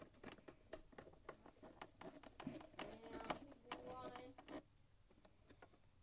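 Faint, irregular small clicks and taps of hands working on the parts of an electric hot-water dispenser under repair, with a quiet voice faintly heard in the middle.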